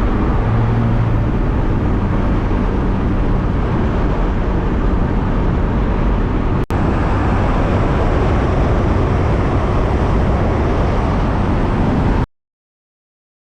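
Steady in-cab drone of a 1st-gen Dodge Cummins pickup on the move: diesel engine and road noise, loud inside the cab. There is a momentary break about seven seconds in, and the sound cuts off suddenly near the end.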